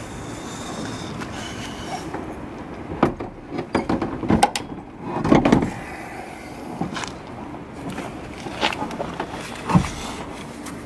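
Irregular metal clanks and knocks as a Honda four-cylinder engine, with its clutch still bolted on, is shifted and heaved out of a car's trunk. The knocks come in a cluster a few seconds in, then a few single ones later, over a steady background noise.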